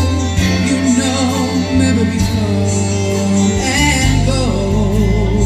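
Music with singing: a voice holds notes with vibrato over steady, sustained bass notes.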